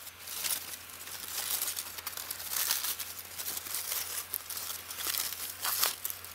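Aluminium foil crinkling as a foil-wrapped parcel is unwrapped by hand, in irregular crackly rustles.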